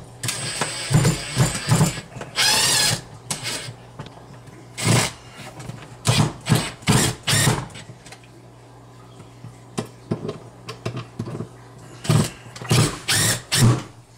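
Duplex receptacle being worked into a plastic electrical wall box by hand with screwdrivers: irregular clusters of clicks, knocks and scrapes of plastic and metal, with one short harsh rasp about two and a half seconds in. A steady low hum runs underneath.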